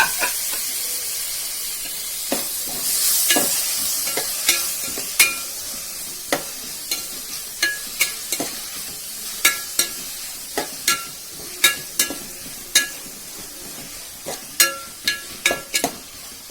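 Onions sizzling in hot oil in a heavy metal pan while a metal spoon stirs them, clinking and scraping against the pan about once a second with a short ring. The sizzle is strongest in the first few seconds and slowly dies down as the onions fry.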